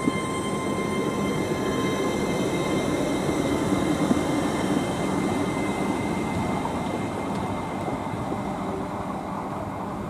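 GWR Intercity Express Train (Class 800/802) passing at speed, a steady rush of wheel and rail noise with thin, high, steady whining tones over it, easing slightly in the last few seconds.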